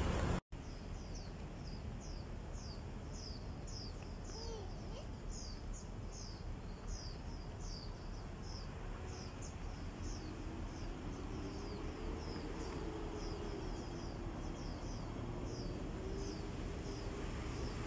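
A bird chirping over and over in short, high, falling notes, about two or three a second, over a steady background hum. The sound drops out for a moment about half a second in.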